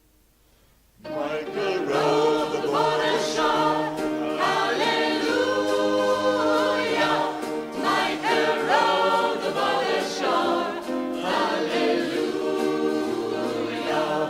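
Choir singing a song in a gospel style, starting abruptly about a second in after near silence.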